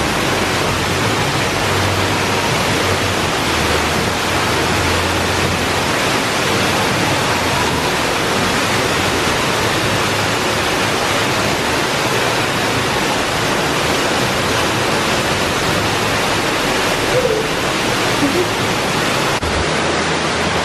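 Loud, steady rushing of water from a man-made waterfall on a themed mini golf course.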